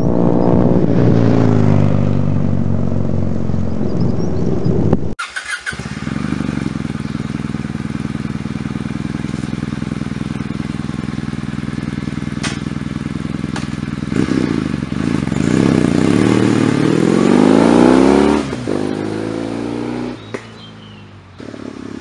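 Kawasaki W800's air-cooled 360-degree-crank parallel twin: first passing by with its note falling and fading, then, after a cut, running steadily and revved up twice, the second time climbing higher, before it drops back and fades as the bike rides off.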